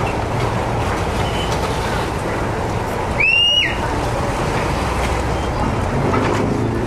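Steady low rumble of a river boat's engine under water and wind noise. About halfway through comes a single short, high whistle lasting about half a second.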